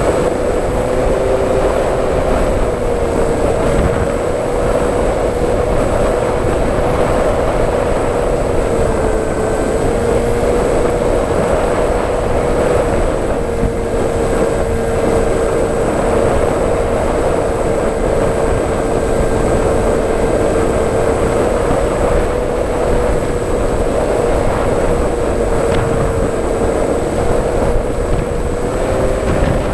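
FPV model aircraft's motor and propeller running as a steady whine, its pitch wavering slightly with the throttle, over heavy wind rush on the onboard microphone.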